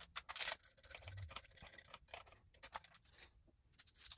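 Light metallic clicks and scrapes of a spark plug socket and extension in an SR20DET's spark plug tube, turned by hand to thread a spark plug into the aluminium cylinder head. The clicks are scattered and irregular, bunched near the start and again a little past halfway.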